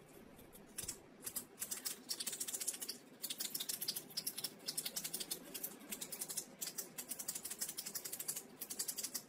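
A retractable pen being clicked rapidly and repeatedly: a fast run of sharp clicks that begins about a second in, breaks off briefly about a third of the way through, then carries on.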